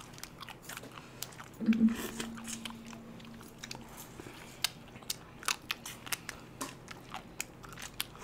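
Close-up eating of ice cream: biting and crunching through chocolate coating and cone wafer, with chewing and many short wet mouth clicks and smacks throughout. A short held hum comes about two seconds in.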